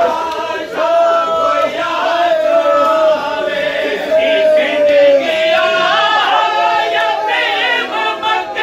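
A crowd of men singing a noha, the Shia Muharram lament, together. Long held notes slide gently down through the first half, and the chanting grows busier in the second.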